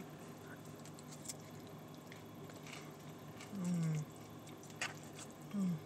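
Close-miked chewing of a forkful of grilled chicken and lettuce, with small wet, clicking mouth sounds, and two short falling hums of enjoyment, about halfway through and near the end.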